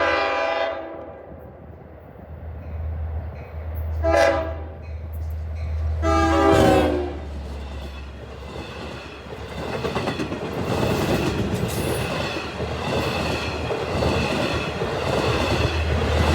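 Train horn sounding three short blasts over a steady low hum. From about nine seconds in, the rumbling noise of a train running through the station builds and holds, with faint whining tones.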